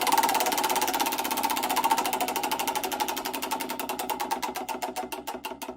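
Lamborghini Aventador's 6.5-litre V12 engine, a rapid even pulsing that slows steadily until separate beats, several a second, can be heard near the end.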